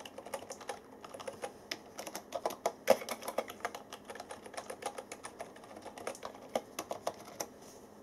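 Typing on a Tesoro Lobera keyboard with plunger-type membrane switches: a quick, continuous run of key presses, each a short click, quite quiet for a gaming keyboard. The typing stops shortly before the end.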